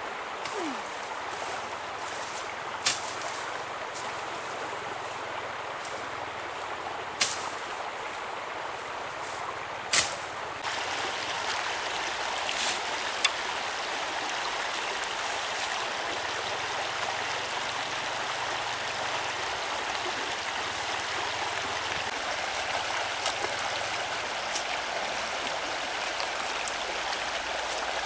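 A few sharp knife chops into leafy branches, then a shallow stream running steadily over rocks, louder for the second half.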